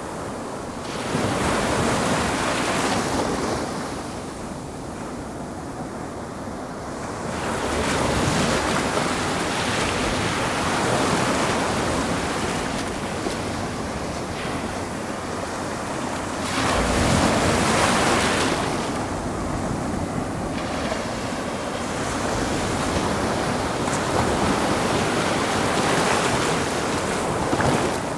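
Ocean waves breaking and washing up the shore, surging louder every several seconds and then drawing back.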